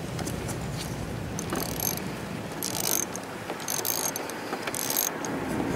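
Socket ratchet wrench clicking in short bursts, about one a second, as it turns out the 8 mm valve-cover bolts of a scooter engine.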